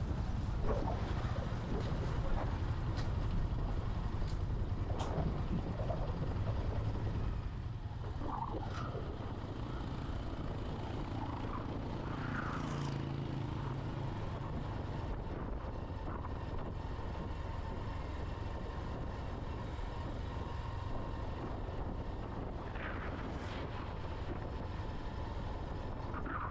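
Steady low rumble of a vehicle moving along a road, with road noise and a few brief higher-pitched sounds.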